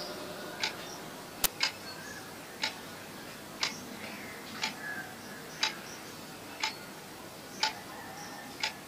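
Quiet regular ticking, one tick about every second, with one sharper click about a second and a half in.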